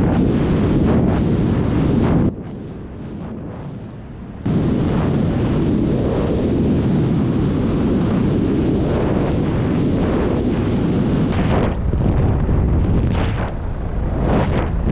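Helicopter in flight: a loud, heavy, low rumble of rotor and engine noise. It drops away abruptly about two seconds in and comes back just as abruptly about two seconds later.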